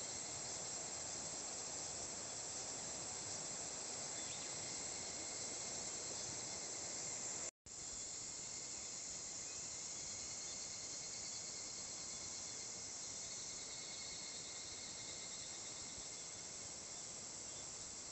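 A steady, high-pitched chorus of summer insects, faint and continuous, breaking off for an instant about seven and a half seconds in.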